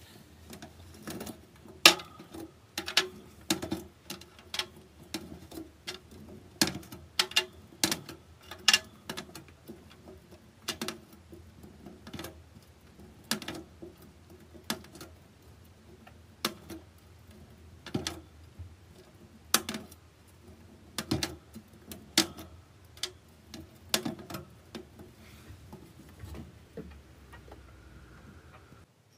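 Irregular sharp clicks and taps, about one or two a second, from a hamster moving about and eating in its clear acrylic cage, over a low steady hum.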